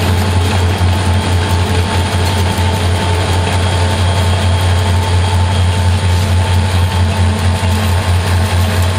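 EMD SD40-2 diesel-electric locomotive, its 16-cylinder EMD 645 diesel running steadily under power as the freight cruises, giving a loud constant low drone with no change in pitch.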